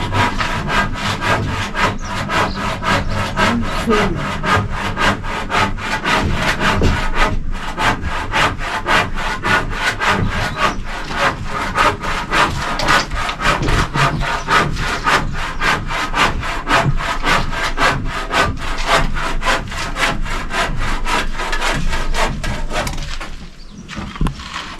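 Handsaw cutting through a roofing timber in fast, even back-and-forth strokes, pausing briefly about seven seconds in and stopping near the end.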